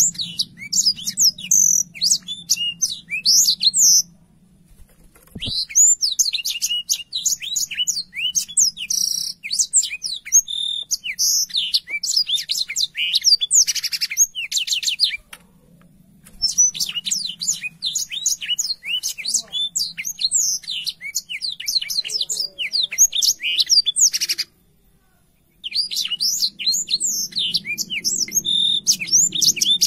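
Black-throated canary singing long, rapid high-pitched phrases of quick chirps and trills, broken by three pauses of about a second.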